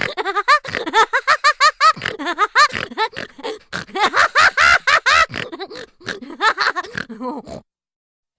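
Cartoon laughing sound effect: rapid, high-pitched giggling in quick repeated syllables, several a second, cutting off suddenly about seven and a half seconds in.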